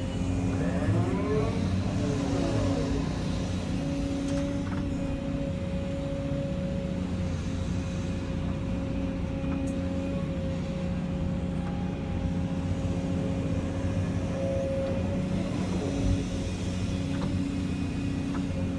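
Volvo EC220E excavator heard from inside the cab: the diesel engine running steadily under load while the hydraulics work through a dig-and-dump cycle. A hydraulic whine rises and falls in pitch near the start and again near the end as the boom and swing move.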